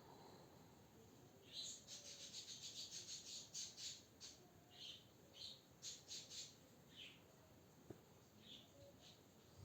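Faint, high-pitched whistling snores: a string of soft squeaks, several a second at times, thinning out near the end.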